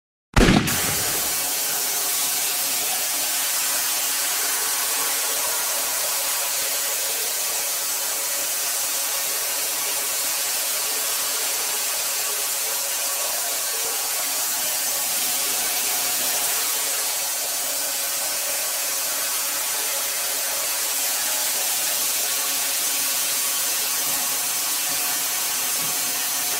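Shower head spraying water steadily onto a shower floor around the drain, an even hiss that starts abruptly about half a second in.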